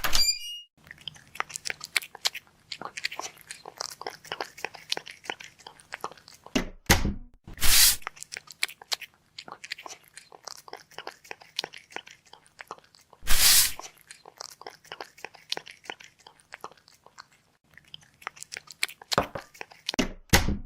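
Close-up chewing and crunching of food from a tomato hot pot, a dense run of irregular wet clicks. It is broken by a few short, much louder noisy bursts about seven, eight and thirteen seconds in and again near the end.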